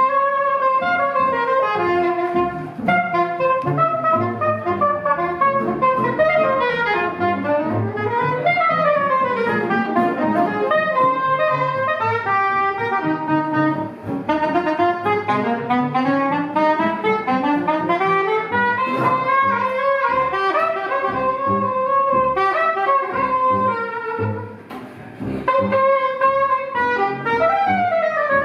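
Small jazz band playing live: saxophone and brass lines running up and down over a walking plucked upright bass and guitar. The music dips briefly near the end.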